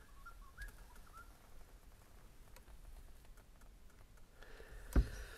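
Quiet vehicle cab with faint scattered clicks and handling noises, and one sharper click about five seconds in; a few faint high chirps in the first second.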